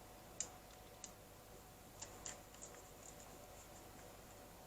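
Near silence with a few faint, irregular metallic ticks as a bolt holding a hole saw to its pilot bit is tightened by hand.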